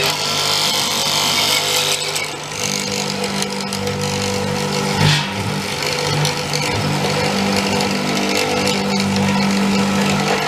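Multico K/3 hollow-chisel mortiser running with a steady motor hum while it cuts square holes, with a short louder knock about five seconds in.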